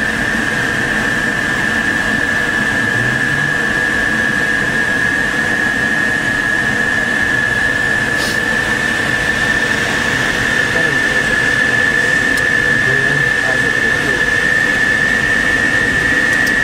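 Steady rush of airflow inside the cockpit of an SZD-50 Puchacz glider in flight, with a constant high tone running through it that rises slightly in pitch.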